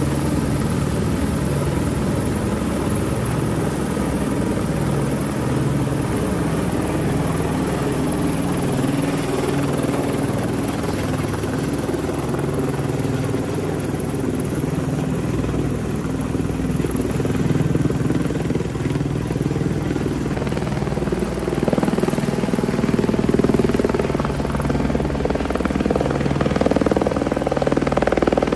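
Helicopter rotor and turbine running steadily overhead, hovering while it lifts a cow slung on a long cable. The rotor's pulsing drone grows somewhat louder in the second half.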